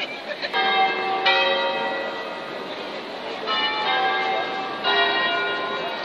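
Church tower bells pealing: four bell strikes of different pitch, about half a second, just over a second, three and a half seconds and five seconds in, each ringing on with a clear sustained tone.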